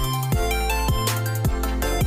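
Background music with a steady electronic beat: deep bass notes, drum hits and melodic synth notes.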